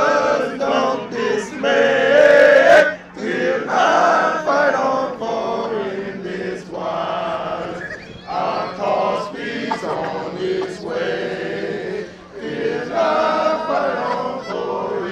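A group of men singing together in unison, in phrases with brief pauses between them.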